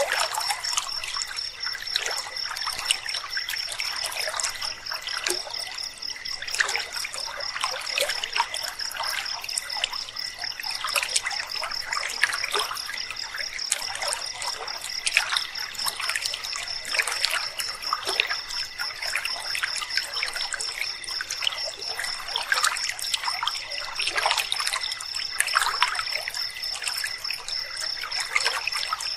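Shallow river water trickling and babbling continuously over stones, with a steady, rapidly pulsing high-pitched trill of night insects running over it.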